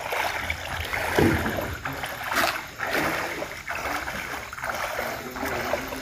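Floodwater sloshing and swishing in repeated surges, about one or two a second, as something moves steadily through it.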